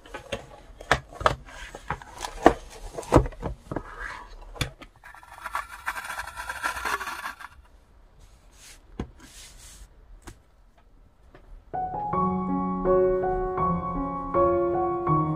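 Knocks and taps of a spiral-bound sketchbook being handled and set down on a desk, then a few seconds of paper masking tape being pulled off its roll with a raspy noise. Soft piano music comes in about twelve seconds in.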